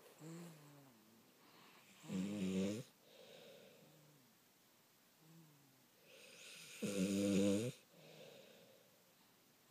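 Snoring: two loud, deep snores about five seconds apart, with fainter, higher squeaky breaths in between.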